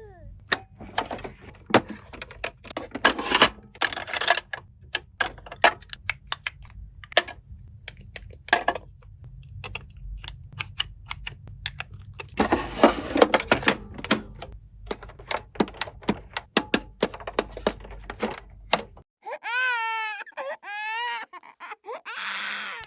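Plastic toys being handled: a fast, irregular run of sharp clicks and taps, densest about twelve to fourteen seconds in. Near the end, a wavering, rising-and-falling crying sound starts.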